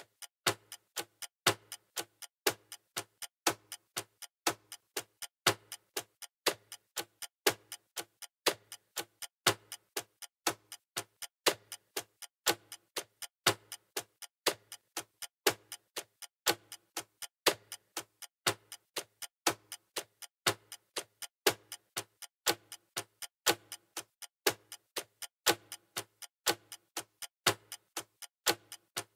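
Clock-tick sound effect marking a quiz countdown timer: a steady tick-tock of about two ticks a second, alternating louder and softer.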